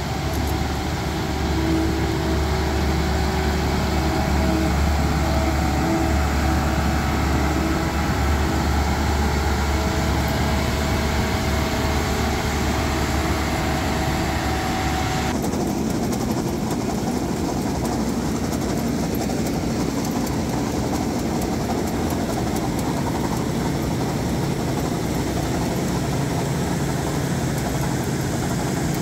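Claas Crop Tiger 40 tracked combine harvester running steadily, its diesel engine humming as it drives over wet ground. About halfway through the sound changes abruptly to a noisier, more even running as the machine works through the rice crop.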